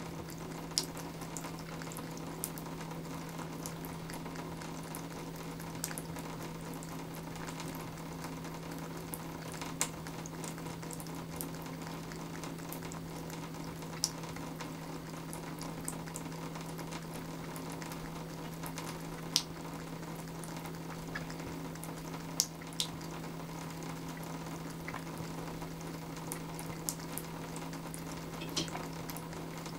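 A thin stream of water running from a bathtub faucet and splashing into the tub, with scattered drip-like clicks over a steady low hum.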